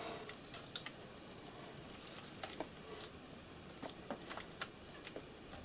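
Faint, irregular light clicks and taps of small RC-car parts and a hand tool being fitted during reassembly of the suspension and dog-bone drive shaft.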